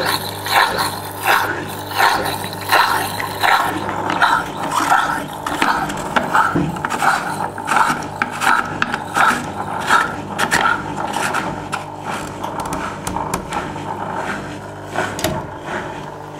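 Original 1992 Askoll magnetic drain pump of a Zanussi Super Jetsystem washing machine running with a steady hum and a regular rasp about every two-thirds of a second. The hum cuts off suddenly about 15 seconds in. It is slightly noisy, which the owner puts down to the pump's age.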